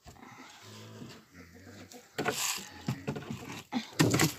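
Handling noises at a wooden rabbit hutch: dry grain feed rustling and rattling under a hand in a wooden feeder, with a few short sharp knocks. The loudest comes near the end.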